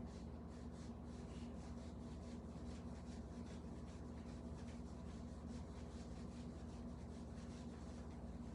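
Faint room tone: a steady low hum with light, scratchy rustling.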